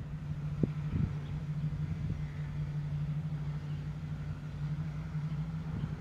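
A steady low mechanical hum, like an engine running, with one short click about half a second in.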